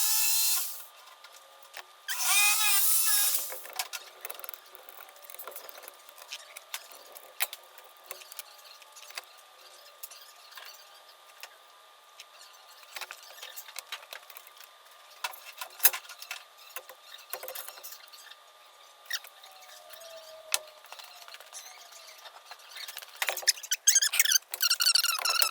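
Scattered light clicks and taps of small carburetor parts being handled and worked on. Two short, high squeals sound at the start, and a louder warbling, wavering pitched sound comes in near the end.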